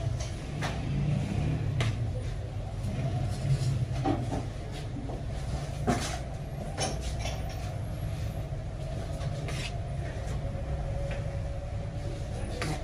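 A large metal skimmer scraping and knocking against a big pan of steaming rice as pulao is turned, with irregular sharp knocks over a steady low rumble.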